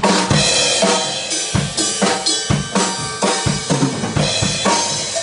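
Clear acrylic drum kit played in a steady rock beat, with kick drum, snare and cymbals, over a recorded rock song. The drums start with a kick hit right at the start.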